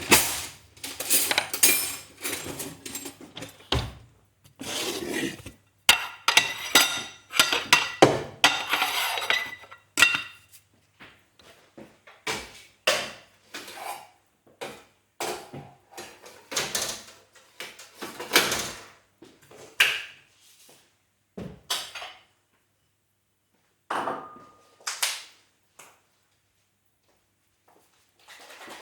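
A string of separate short sound effects, one after another: clattering and clinking sounds, some with a ringing tone, coming thick and fast at first and more sparsely later.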